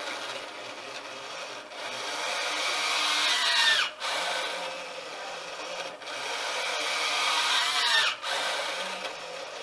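Sail-winch servo of an automated bag-valve-mask (Ambu bag) ventilator whining as it squeezes the bag and lets it back out, at maximum tidal volume. The strokes last about 2 seconds each, with a short pause between them, and a louder whine builds and bends in pitch before cutting off sharply about every 4 seconds.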